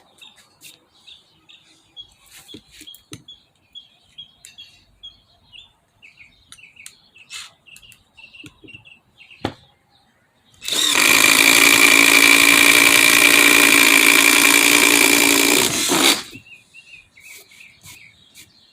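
Hercules 20V brushed impact driver boring a hole with a 1-inch Diablo spade bit. It starts about ten seconds in, runs loud and steady for about five and a half seconds, and stops abruptly. Birds chirp faintly before and after.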